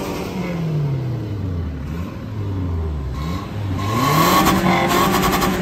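Toyota Tacoma pickup's engine revved repeatedly, its pitch climbing and falling several times. The longest and loudest rev climbs about three and a half seconds in and holds high near the end.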